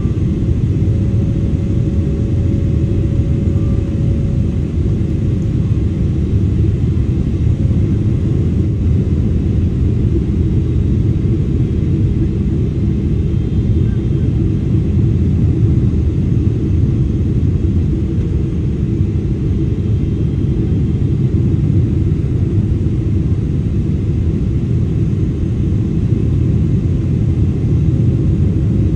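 Steady low rumble inside the cabin of a Boeing 777-300ER on final approach: its GE90-115B engines and the airflow over the airframe.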